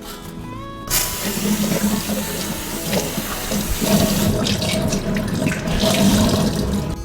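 Water from a tap running into a sink, turned on suddenly about a second in and running steadily, splashing and drumming on the basin.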